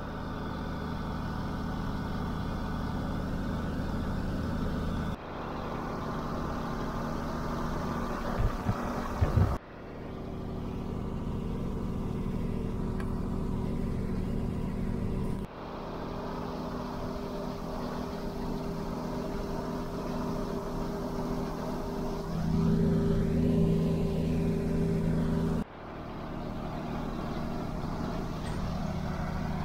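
Tractor engine running steadily while pulling a grain drill, heard from inside the cab, in several spliced clips that each break off suddenly. A few sharp knocks come about a third of the way through, and the engine grows louder for a few seconds about three quarters through.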